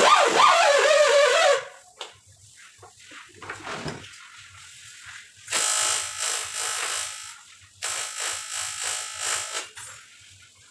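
TIG welding arc buzzing in two runs of about two seconds each, the first a little after halfway and the second soon after, as filler rod is fed into a weld on a water jacket. It opens with a loud wavering sound lasting about a second and a half.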